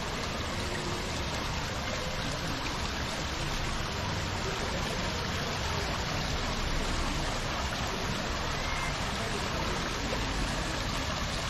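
Tiered fountain's water splashing and trickling steadily into its basin.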